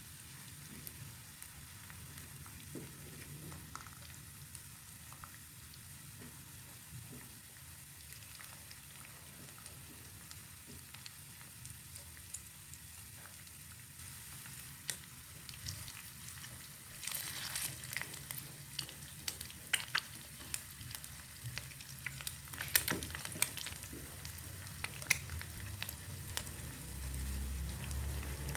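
Food frying in hot oil in a pan, with a steady sizzle. From a little past halfway, a spatula stirs and scrapes against the pan, adding sharp clicks.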